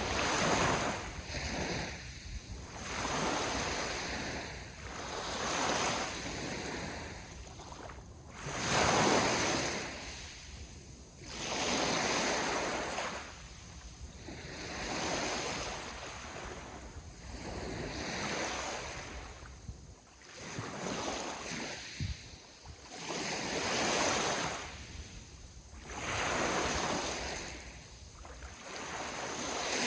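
Sea waves breaking and washing up on the shore, each surge swelling and fading about every three seconds.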